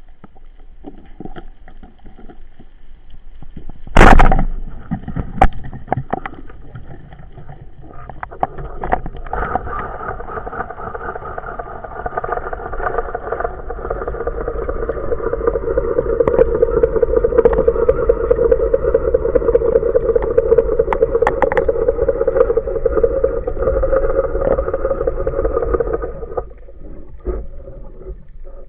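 A sharp knock, then a motor running steadily that grows louder and cuts off near the end.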